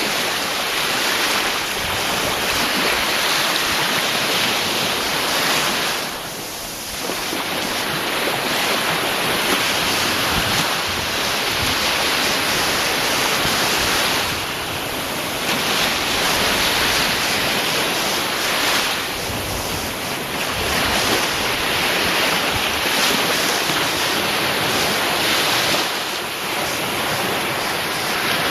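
Ocean waves surging and breaking in a continuous loud rush of surf, easing briefly about every six to eight seconds between wave sets.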